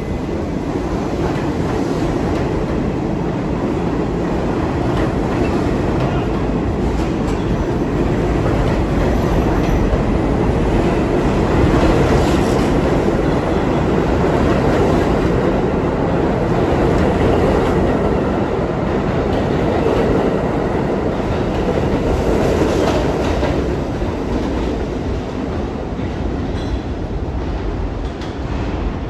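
Subway train pulling out of a station platform, its cars running past on the rails with a steady rumble. The sound eases off slightly near the end as the last car leaves.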